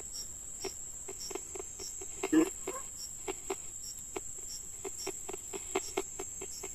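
A spirit box sweeping through radio stations: an even, rapid chopping of short bursts of static and broken radio fragments, about three a second, with one louder voice-like snippet a little past two seconds in. Under it runs a steady high chirring of crickets.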